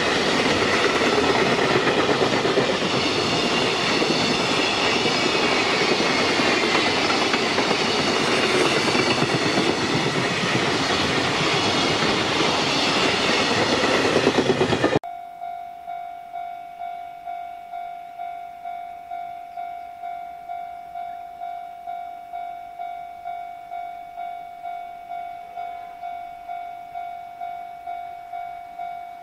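Container wagons of a JR Freight train rolling past at speed with a loud, steady rumble and clatter of wheels on rail, cut off abruptly about halfway through. After that comes a much quieter steady electronic tone, pulsing about one and a half times a second.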